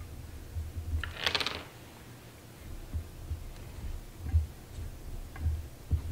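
Handling noises on a wooden workbench: a brief rasping rattle about a second in, then scattered light knocks and clicks as the chainsaw is handled and wiped down.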